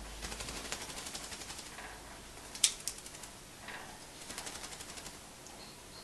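African grey parrot clicking: a rapid run of sharp clicks lasting about two seconds, one louder single click in the middle, and a second, shorter rapid run near the end.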